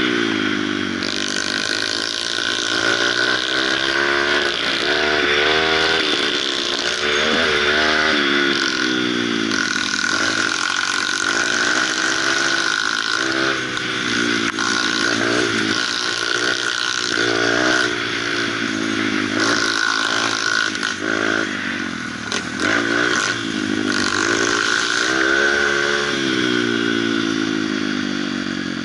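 Kawasaki KLX150 trail bike's single-cylinder four-stroke engine heard up close, revving up and dropping back over and over as the throttle opens and closes through the gears, with a steady high tone and wind noise over it. It eases off near the end.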